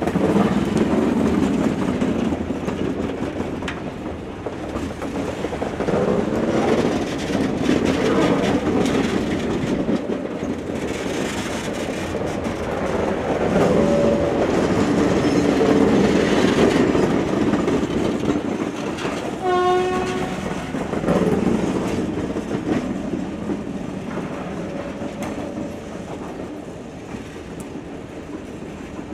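Loaded hopper wagons rolling slowly past at close range: wheels rumbling and clacking over the rail joints, running gear and bodies rattling. A short high tone sounds about two-thirds of the way through, and the sound fades as the last wagon goes by near the end.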